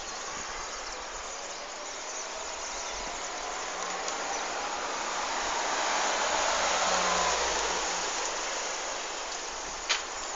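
A car driving past on the street, growing louder to a peak about two-thirds of the way through and then fading, over a steady outdoor hiss. A sharp click near the end.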